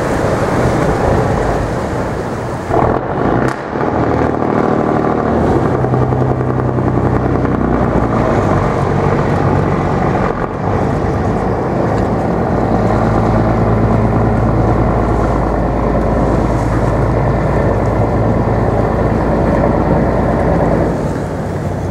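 Ice-breaking tug's engine running steadily with a low hum, over a rough churning noise as the hull pushes through broken river ice.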